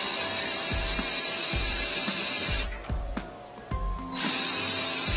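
Flex-shaft drain cleaning machine running, its spinning cable churning water in a floor drain to knock loose epoxy, with a loud spattering hiss and low knocks. It stops for about a second and a half midway, then starts again.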